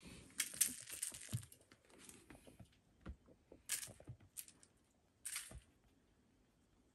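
Soft thumps of a kitten leaping and landing on a tatami mat as it swipes upward at a toy, with three short bursts of crinkly rustling.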